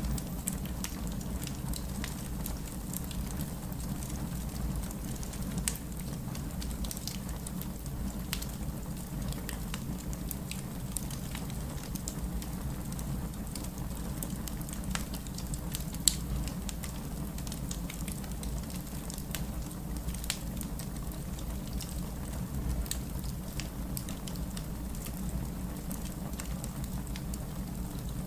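Wood fire crackling in a fireplace: a steady low rumble of flames under frequent sharp, irregular pops and snaps, with one louder pop about halfway through.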